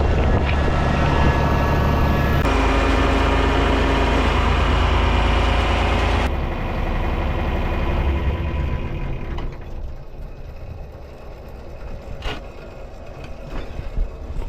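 Heavy farm diesel engine running steadily with PTO-driven grain-handling machinery. It is loud at first, drops suddenly about six seconds in, and is much quieter over the last few seconds.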